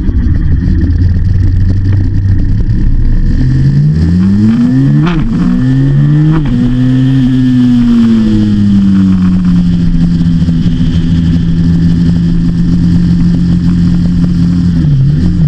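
KTM 390 Adventure's single-cylinder engine accelerating up through the gears, its pitch climbing and dropping with three quick upshifts, then easing back to a steady note at cruising speed.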